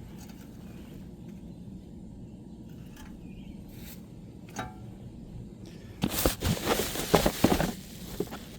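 Metal tools and parts being handled during brake work: one sharp clink that rings briefly, then about two seconds of loud, irregular clattering and scraping.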